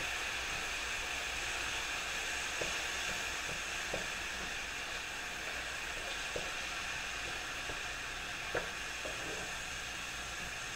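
Ground turkey and onions sizzling steadily in a hot skillet, with a few light taps of a spatula against the pan as the meat is chopped up to brown.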